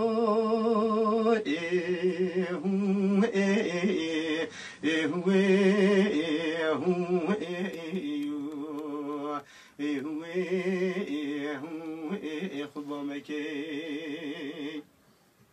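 Kurdish dengbêj singing: a man's voice singing unaccompanied, in long held notes with a wide, fast vibrato and melismatic turns from note to note, broken by short breaths. The voice stops near the end.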